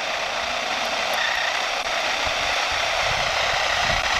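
Cessna Grand Caravan's single turboprop engine approaching on final, a steady rushing whine growing gradually louder. Low rumbles of wind on the microphone come in during the second half.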